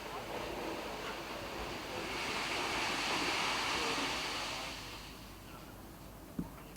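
A gust of wind swelling to a loud hiss and dying away, with one sharp click near the end.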